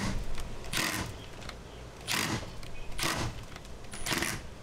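Hand tools working at old, rusted bolts in a plastic bumper support: five short, noisy strokes about a second apart.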